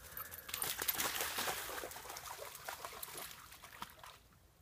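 A Labrador retriever running through dry fallen leaves and splashing into a shallow puddle: a rapid patter of footfalls and splashes, loudest about a second in, that stops about four seconds in.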